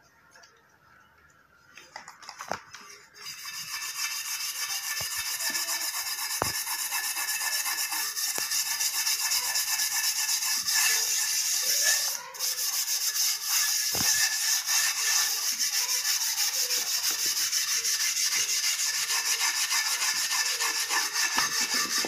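Steel-wool scrubber scouring a metal dosa griddle coated in toothpaste and lemon, a fast, steady scratchy rasp of rapid back-and-forth strokes that starts about three seconds in, with a brief pause near the middle. The scrubbing is working the blackened, burnt-on residue off the cooking surface.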